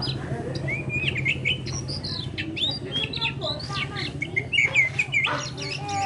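Oriental magpie-robin (kacer) singing a fast, varied run of whistles, chirps and short glides. A low steady hum sits underneath for the first two seconds.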